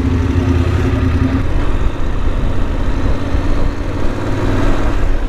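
Voge 900 DSX motorcycle's parallel-twin engine running steadily, a low, even drone.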